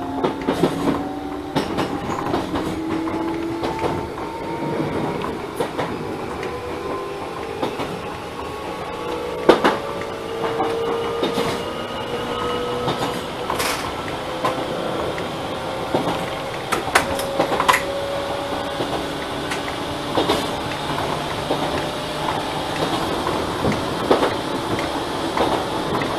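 Enshu Railway 1000-series electric train running, heard from the driver's cab: a motor whine rising slowly in pitch as it gains speed, with scattered sharp clacks of the wheels over the track.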